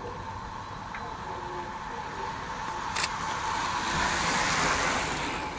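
Racing bicycles passing close by: a swell of tyre and wind hiss that builds and fades in the second half, with a sharp click about three seconds in.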